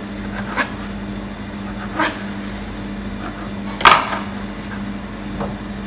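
A few sharp knocks of a chef's knife against a plastic cutting board as crusts are trimmed from slices of white bread, the loudest about four seconds in, over a steady low hum.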